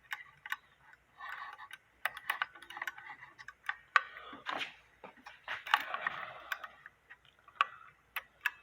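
Irregular clicks, knocks and light scraping as loose wooden cuckoo clock parts are handled and moved about.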